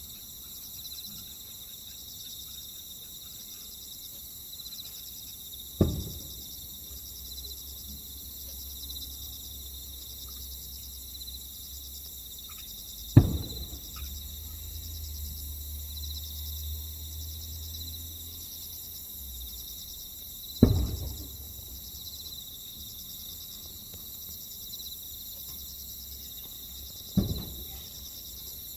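Aerial firework shells bursting with a loud boom four times, about every seven seconds, each boom trailing off in a short echo. Night insects chirp steadily behind them.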